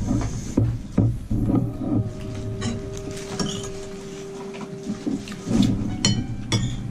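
A few sharp clinks of ceramic dishes and a spoon at a dinner table during a meal, over background music.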